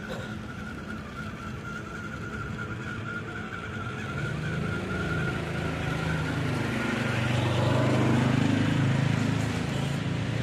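Small electric motor and gearbox of a WPL D12 mini RC pickup truck whining steadily as it crawls over concrete. From about four seconds in, a louder low hum joins it, swells to a peak near eight seconds and eases off.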